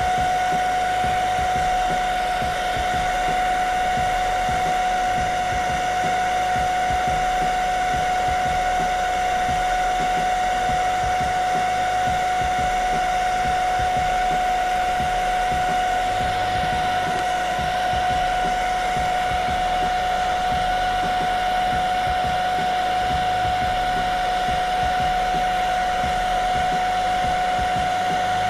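Rowenta Collection hair dryer running without a break on its lowest heat and speed setting: a steady motor whine over the rush of air.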